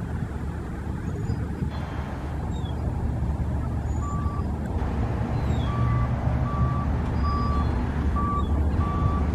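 Steady low rumble of vehicle traffic, with a vehicle's reversing alarm beeping at one pitch about every half second from about four seconds in. Faint bird chirps over it.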